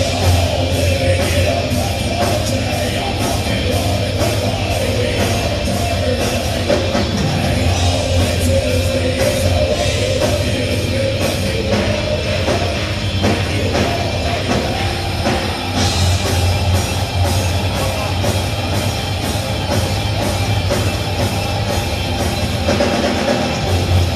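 Heavy rock band playing live and loud: distorted electric guitars, bass and a pounding drum kit with crashing cymbals, with a singer's voice over them, heard from the audience floor.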